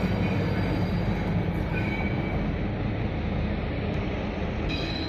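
Taiwan Railway diesel-electric locomotive R158 running past close by on a freight train, a steady heavy engine and rail rumble that eases slightly. Faint metallic wheel squeal appears partway through and grows stronger near the end.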